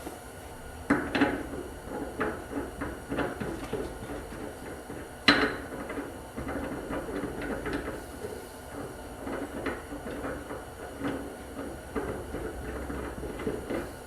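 Reloading dies from a Redding die set being handled on a workbench: a string of irregular clicks and knocks, with one sharp knock about five seconds in.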